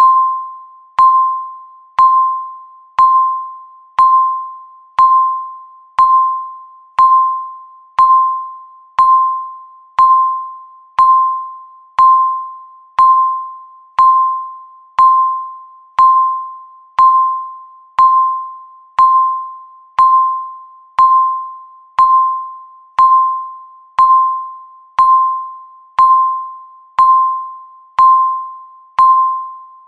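Countdown timer beep: a single tone of about 1 kHz struck once a second, each note starting sharply and fading away before the next.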